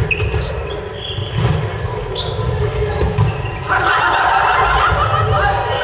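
Noise of an indoor ball game in a hall: balls thudding on the floor, a few short high squeaks, and shouting voices that get louder about two-thirds of the way in.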